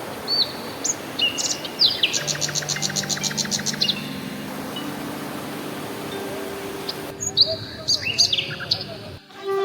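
Birds calling: clear whistled notes, then a fast trill of repeated chirps about two seconds in, with more whistles near the end, over a steady background hiss.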